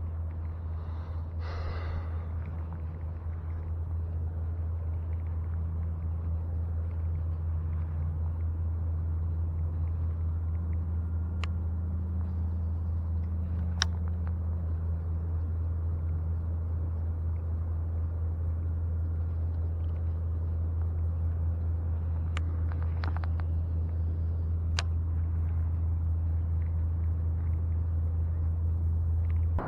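Car driving: a steady low rumble, with a few sharp clicks now and then. It cuts off suddenly at the end.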